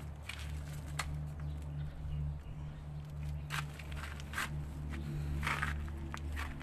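Dry debris rustling and scraping as it is picked by hand out of an opened concrete burial niche, in several short crackly bursts, over a steady low hum.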